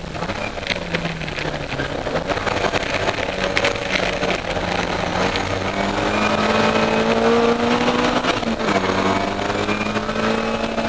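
Austin Mini Cooper race car's four-cylinder A-series engine under hard acceleration, heard from inside the cabin. The engine note falls over the first two seconds, then climbs steadily for several seconds and drops sharply near the end with an upshift before rising again.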